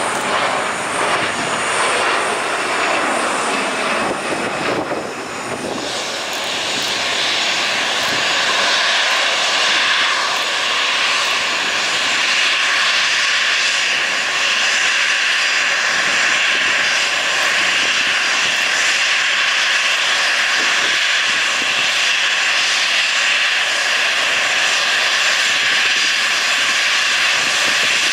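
Jet airliner turbofan engines running at taxi power, a steady whine over a rushing hiss. About six seconds in the sound changes, then holds as the steady whine of an Embraer E190's engines as it taxis in towards the stand.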